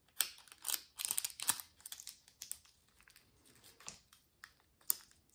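Nail transfer foil being pressed and rubbed onto a press-on nail with the fingers: light, irregular clicks and crinkles, thickest in the first second and a half and again near the end.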